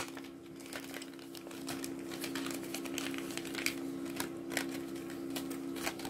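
Clear plastic bag and card packaging crinkling and crackling as it is pulled open by hand, a scatter of small clicks and rustles, over a steady low hum.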